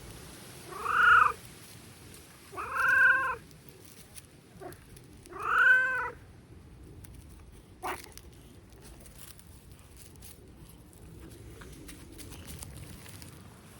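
Small calico cat meowing three times, each call short and pitched, about two seconds apart, followed by a single sharp click.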